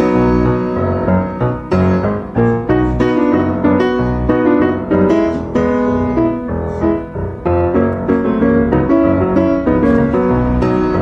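Background piano music, with notes struck in quick succession.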